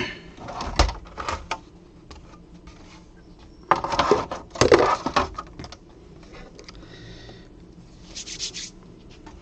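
Plastic and metal parts of a PlayStation 4 console being handled during disassembly: scattered clicks and knocks, a burst of scraping and clattering about four seconds in, and a short hiss near the end.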